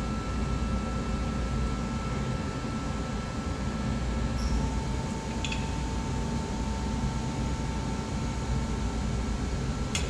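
Steady mechanical hum with a thin steady whine. A few faint clicks come through as a hand tool pries wheel weights off the rim of a motorcycle wheel on a tire machine.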